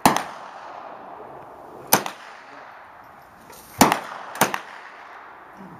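Four sharp shots from a Smith & Wesson M&P 15-22 .22 LR semi-automatic rifle, fired one at a time: one right at the start, another about two seconds later, then two close together about four seconds in.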